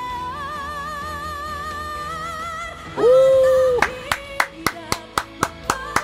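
A live female vocal duet holds a long sung note with vibrato over a pop-ballad backing. About three seconds in, a louder held vocal note cuts in for under a second. Then even handclaps follow, about three a second.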